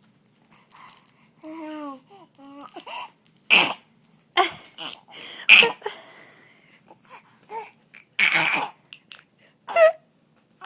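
A baby making a harsh, raspy noise from the throat in several short bursts, the longest about a second, with pitched babbling coos between them.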